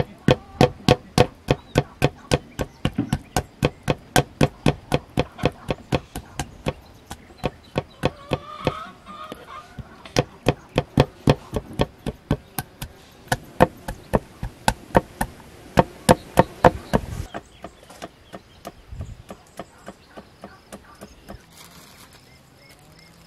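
Kitchen knife chopping on a wooden cutting board in a steady rhythm of about three strokes a second, stopping about seventeen seconds in, followed by a few lighter strokes.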